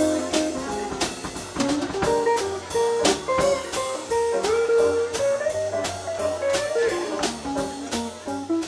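Small jazz band playing a bluesy tune live: an electric guitar melody over upright bass and a drum kit keeping a steady beat.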